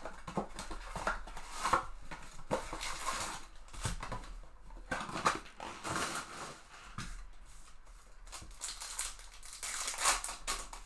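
A cardboard trading-card hobby box being torn open and its sealed foil card packs handled, with irregular crinkling, rustling and tearing. Near the end a foil pack's wrapper is ripped open.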